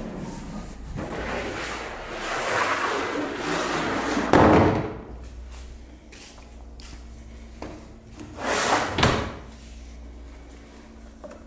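Large thin steel sheet scraping as it is slid across a workbench, building up to a loud thud about four seconds in as it settles on the bench. A second, shorter noise follows near nine seconds.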